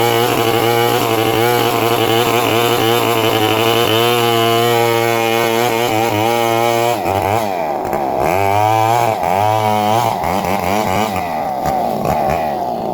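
Two-stroke chainsaw engine running at steady high speed. About seven seconds in, its pitch drops and climbs again several times as the throttle is eased off and opened back up, then it holds steady again.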